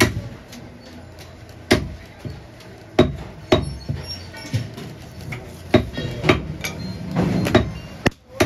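A heavy butcher's cleaver chopping into a goat leg on a wooden log block. About ten sharp blows come at uneven intervals, some close together in pairs.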